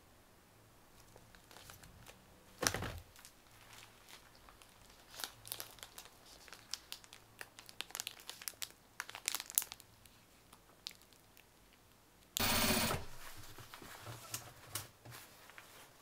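Candy packaging being handled: Hi-Chew wrappers and a foil snack packet crinkling in scattered small crackles, with a sharp louder crackle near three seconds in. A little after twelve seconds comes a louder tear of about half a second.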